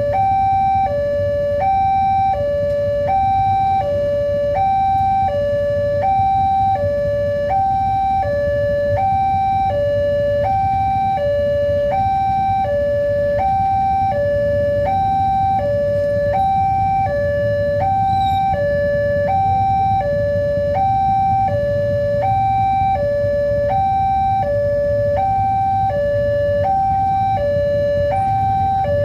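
Electronic railway level-crossing alarm sounding a steady two-tone warning, alternating between a lower and a higher note about every three-quarters of a second without pause, signalling that a train is approaching and the barriers are down. A constant low rumble sits beneath it.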